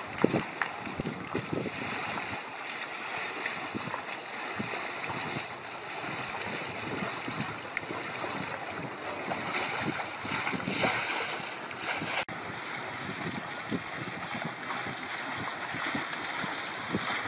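Wind buffeting the microphone, gusting unevenly, over the rushing and splashing of water at the bows of sailing dinghies passing close by.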